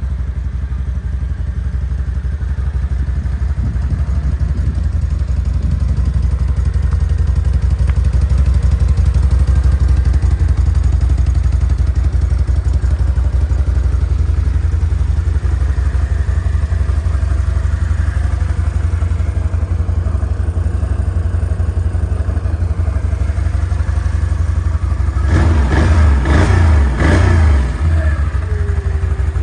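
Can-Am Outlander 650's Rotax V-twin engine idling steadily, then revved in a few quick blips near the end.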